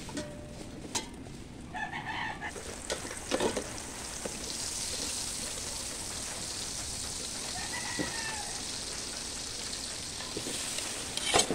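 Hot oil sizzling in a stainless steel pot as chopped ingredients fry, the sizzle building about four seconds in. A short animal call comes about two seconds in and another about eight seconds in. Near the end a spoon clatters as chopped meat is tipped from a plate into the pot.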